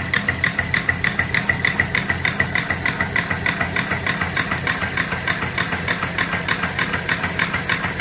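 Small single-cylinder steam engine (3-inch bore, 4-inch stroke) running steadily under steam, with a rapid, even beat of exhaust chuffs and mechanical clatter. Its exhaust is piped up the boiler's stack.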